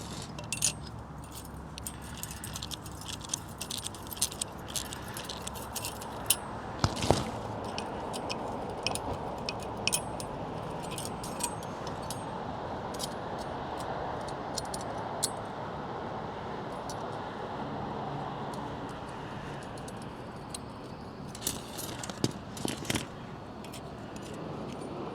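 Small metal parts clinking and rattling as they are handled, in many irregular light clicks, over a steady background hiss.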